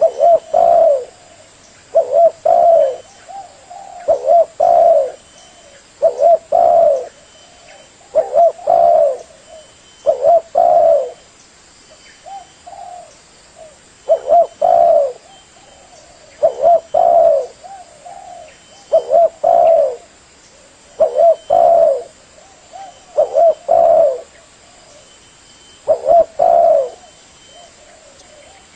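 Spotted dove (tekukur) cooing: a phrase of two or three low coos, repeated about every two seconds.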